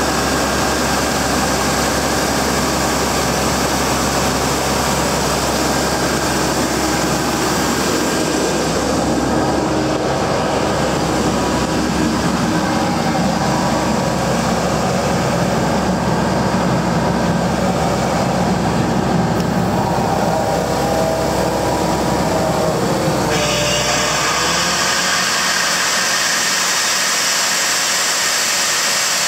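Cummins QSL9 six-cylinder diesel engine of a Sullivan 900CH portable air compressor running steadily and loudly. About 24 seconds in, the deep engine drone drops away suddenly and an even hiss takes over.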